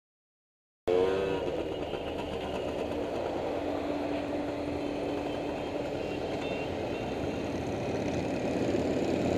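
Silence for about a second, then heavy truck engines running in a steady rumble that slowly grows louder toward the end.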